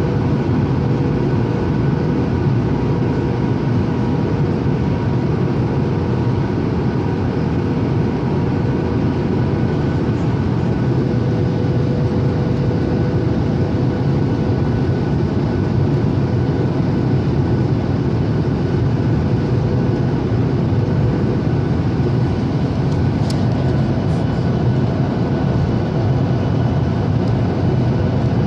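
Steady cabin noise inside a Boeing 737-800 on arrival: the even rumble of its CFM56 engines and the airflow, with a faint steady hum over it. A brief click about three-quarters of the way through.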